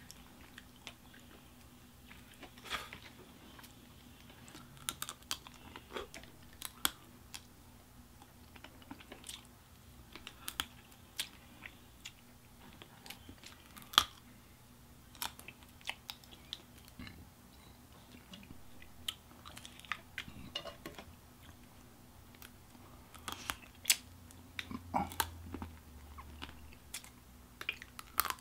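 Boiled crawfish being peeled by hand and eaten: irregular sharp shell cracks and clicks mixed with chewing, the loudest crack about halfway through and a cluster of them a few seconds before the end.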